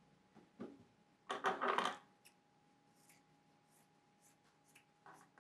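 Scissors cutting across a pant leg of old jeans on a table, with handling noise from the fabric and scissors. A louder scraping rustle comes about a second and a half in, then a run of faint clicks of the scissor blades.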